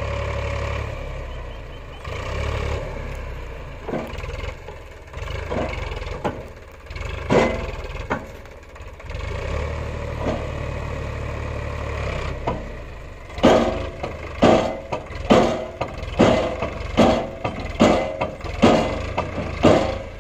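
Heavy diesel machinery engine running with a steady low hum. From about two-thirds of the way through comes a regular series of sharp knocks, a little over one a second.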